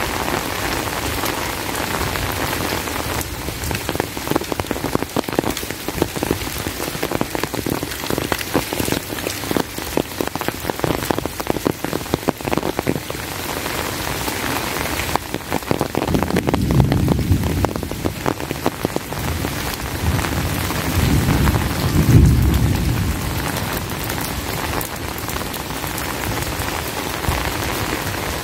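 Heavy rain falling steadily, with a dense close patter of drops. Thunder rumbles low a little past halfway through, and again more loudly a few seconds later.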